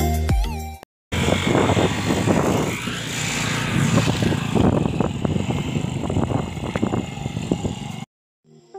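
Wind buffeting a phone's microphone outdoors, an uneven gusting rush with strong low rumble. It follows background music that fades out about a second in, and stops abruptly near the end.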